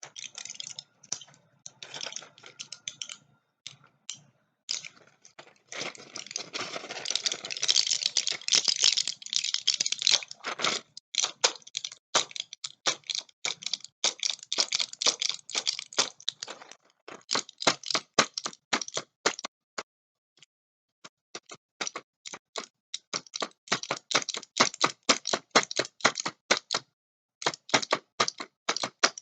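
Quick runs of light clicks and taps, crowding into a dense crackle from about six to eleven seconds in, with a short pause a little after the middle.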